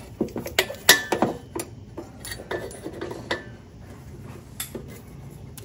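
Metal exhaust hanger removal tool clinking and scraping against the exhaust pipe and hanger rod while prying off a rubber exhaust hanger. A quick run of sharp clinks comes over the first second and a half, then softer clicks and rubbing, and one more clink near the end.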